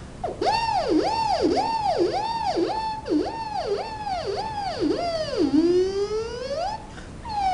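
Beatboxed police siren made with the mouth: a run of about ten quick high whoops, roughly two a second, then a long rising wail. Near the end a falling wail begins.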